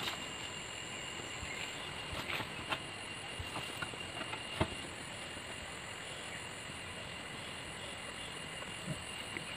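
Quiet outdoor background with a steady high-pitched whine, broken by a few light knocks: the sharpest right at the start, then a few more in the first five seconds, as a long bamboo pole is handled and laid down in grass.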